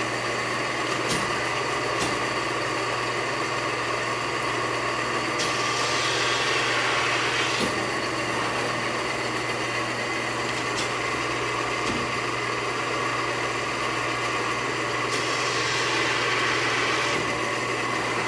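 Pacific Tri-Arco 35-ton hydra-mechanical press brake running with a steady motor hum, with a few sharp clicks and two swells of hiss, each about two seconds long, about five and fifteen seconds in.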